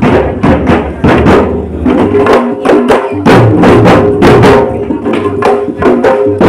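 A group of drummers playing barrel drums by hand and large round frame drums beaten with sticks, a fast even rhythm of loud strikes, about four to five a second.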